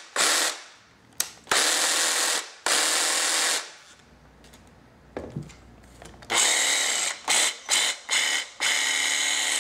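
Cordless 18-volt jigsaw motors run unloaded in the air, switched on and off in bursts of about a second. After a quiet pause in the middle, a longer run and then several quick on-off bursts come near the end.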